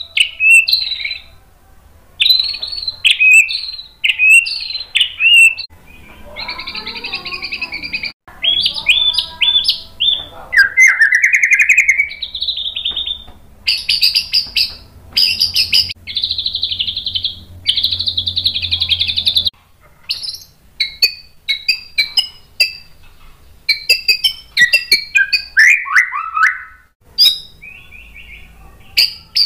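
White-rumped shama singing its loud, varied song: bursts of quick whistled and chattering phrases with short pauses between them. Some phrases are held as long rapid rattles of a second or two, and a run of falling whistles comes late on.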